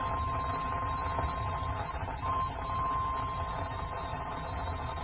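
NOAA Weather Radio 1050 Hz warning alarm tone, one steady pitch held throughout, sounding for the weekly test, heard through a weather-radio receiver with a constant static hiss underneath. The tone dips briefly about two and a half seconds in.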